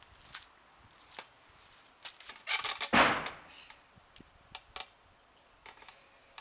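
A quick cluster of knocks ending in a heavy thump about two and a half seconds in, as a person jumps up, grabs a backyard pull-up bar and takes their weight on its wooden frame; a few lighter clicks follow about a second and a half later.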